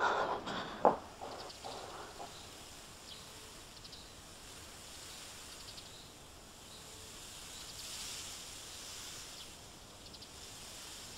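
Quiet rural ambience: insects chirping in short, evenly pulsed trills over a faint steady hiss that swells slightly around the middle. A few footstep-like knocks in the first second.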